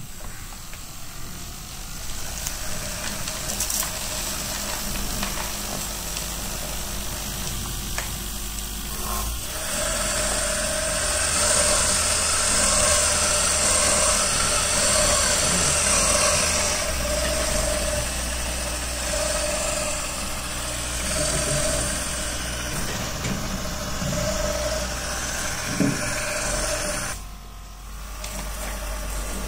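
Small DC gear motor turning the separator's aluminium-covered drum, with the hopper vibrator running: a steady mechanical hum and buzz. It grows louder and hissier about ten seconds in, drops out briefly near the end, then resumes.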